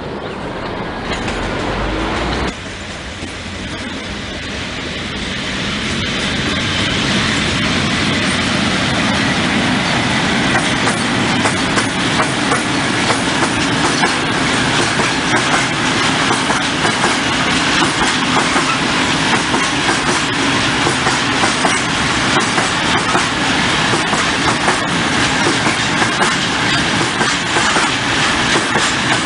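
A train passing close by, its wheels clattering rhythmically over rail joints. It builds over the first several seconds and then runs on steadily.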